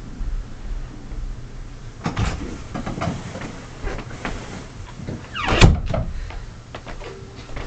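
Irregular knocks, clunks and rattles of hard objects being handled, with a short creaking, sliding squeak about five and a half seconds in.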